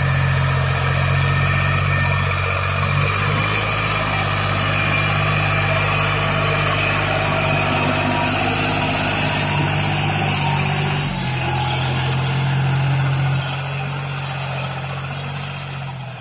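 Lamborghini tractor's diesel engine running steadily under load as it pulls a tillage implement through soft soil. Its pitch shifts slightly about eleven seconds in, and the sound grows quieter near the end as the tractor moves away.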